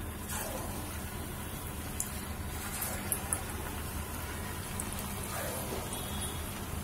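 Water chestnut flour and potato pakoras sizzling as they deep-fry in hot ghee in a kadhai, a steady hiss with a few sharp clicks about two and three seconds in.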